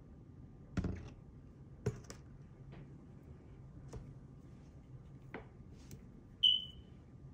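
Plastic squeeze bottles dispensing liquid onto a coin: about seven scattered soft clicks and taps, with a brief high chirp near the end.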